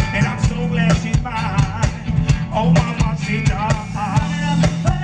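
Live funk band playing: a steady drum beat and bass line with electric guitars, under a sung lead vocal.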